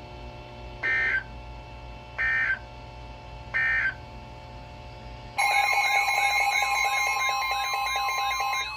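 Emergency Alert System broadcast: three short bursts of digital data tones, the end-of-message code that closes a warning. About five seconds in, a loud alert tone starts, a steady tone with a warbling tone layered over it, the attention signal ahead of the next warning.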